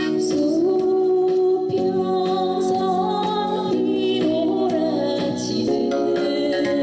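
Korean trot song: a woman singing a sustained, wavering melody over a backing track with keyboard and guitar.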